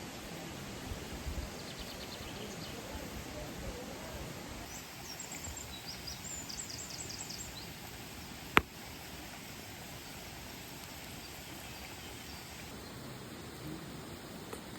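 Steady rush of flowing water from a waterfall, with a small bird's rapid high chirping in two short trills and one sharp click a little past halfway.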